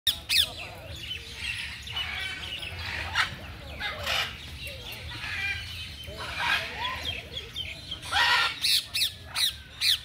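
Caged parrots and parakeets squawking and chattering, a string of harsh, sharp calls that come thickest and loudest near the end.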